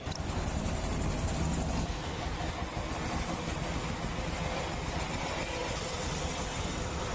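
An engine running steadily, cutting in suddenly at the start.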